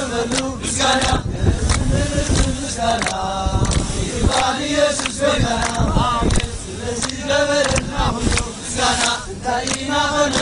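A group of men and women singing together in a chant-like call-and-response, with hand claps keeping time, over a steady low rumble.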